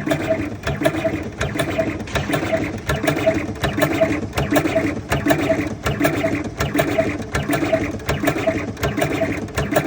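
Electric cigarette-tube tobacco filling machine running, its mechanism cycling in a fast, steady, evenly repeating mechanical rhythm.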